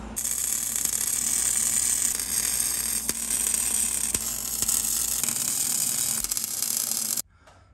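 MIG welder arc crackling steadily as a steel patch is welded into a car's frame rail. It stops abruptly near the end.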